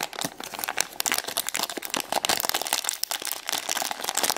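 A plastic Paw Patrol blind-bag packet crinkling as it is crumpled in the hands: a dense run of rapid crackles throughout.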